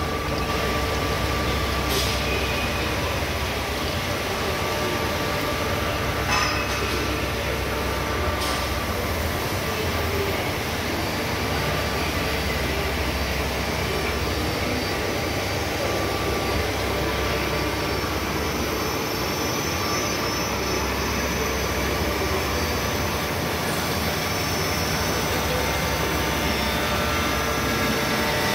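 İZTES 300 automatic band saw running and cutting through a bundle of steel tubes under coolant: a steady mechanical grinding noise with a low hum, broken by a few sharp clicks in the first nine seconds.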